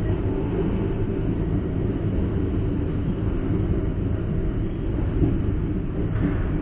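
Malioboro Ekspres passenger train running along the track, heard from on board: a steady low rumble of wheels and carriage with no sharp events.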